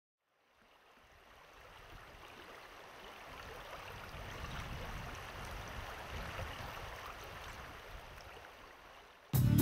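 Rushing stream or river water that fades in, swells and fades back down. Music cuts in sharply just before the end.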